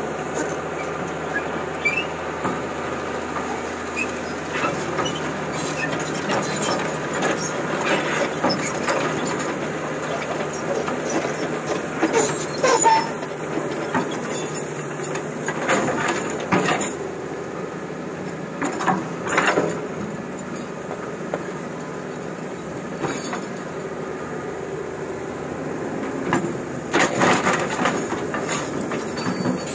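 Old excavator's diesel engine running steadily while digging rock, with several louder metal scrapes, squeals and clanks as the bucket works the stone, the loudest about halfway through and near the end.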